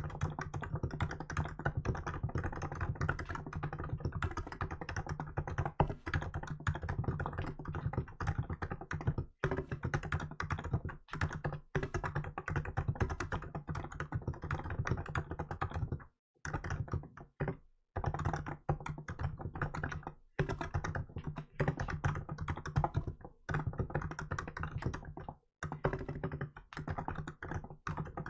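Fast, continuous typing on a Hansung GK868B electro-capacitive keyboard with milk-white keycaps: a rapid stream of keystrokes, broken by a few brief pauses.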